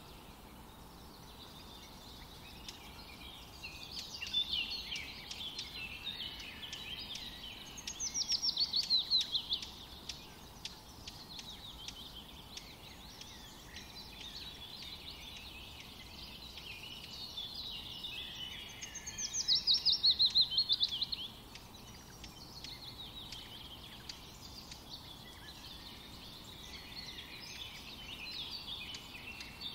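Songbirds chirping and singing, with two loud, fast trills that slide downward in pitch, about 8 and 19 seconds in.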